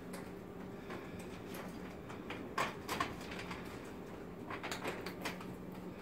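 Conveyor machinery running with a steady low hum, with scattered sharp clicks and knocks about two and a half seconds in and again near five seconds.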